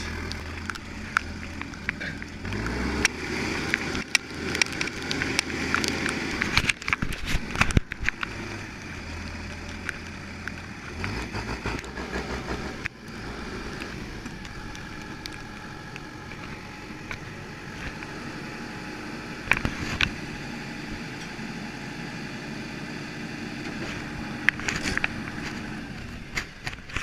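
Farm tractor engine running at low speed, with rattles, clicks and knocks throughout; the low engine hum shifts a few times and grows weaker about halfway through.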